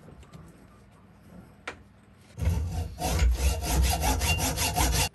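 Hand hacksaw cutting a steel bolt clamped in a bench vise, with steady back-and-forth strokes that start about two and a half seconds in and stop just before the end. The bolt is being trimmed to length. A few faint clicks come before the sawing.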